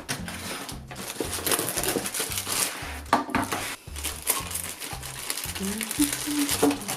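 Cardboard and plastic packaging crinkling and rustling in irregular handfuls as a large toy is worked out of its box, over background music with a steady beat.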